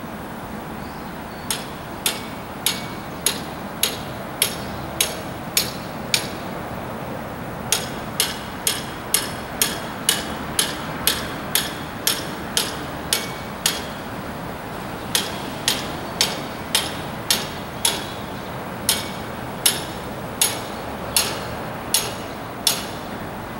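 Hand hammer blows struck by a worker on the flat wagons of a rail-delivery train, steady and evenly paced at a little under two a second, in three runs with short pauses between them.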